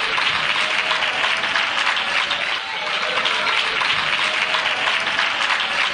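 A congregation clapping steadily together, with a few voices heard over the clapping.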